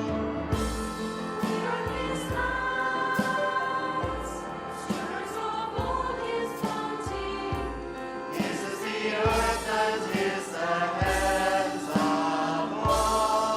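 Church worship group singing a hymn in parts, accompanied by a praise band, with a steady beat underneath.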